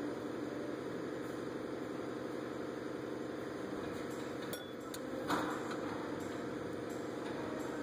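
A steady mechanical hum in the background, with one sharp metallic clink from a hand tool against the engine's metal parts about five seconds in.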